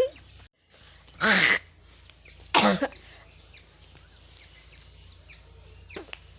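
Two deliberate coughs by a woman: a longer one about a second in, then a shorter, sharper one a second or so later.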